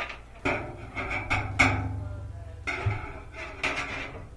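Screws being driven in to fasten a washing machine's replacement water pump: two stretches of tool noise with sharp metallic clicks.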